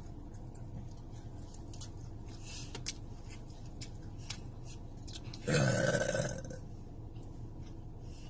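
One loud burp lasting about a second, about five and a half seconds in. Faint scattered clicks come before it.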